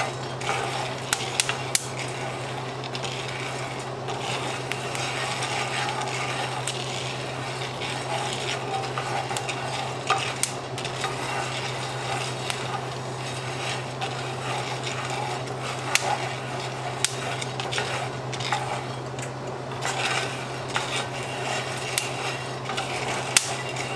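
Coffee beans roasting in a cast iron skillet, stirred and scraped around with a wooden spoon, with scattered sharp cracks from the beans as they crack in the heat. A fan runs steadily underneath.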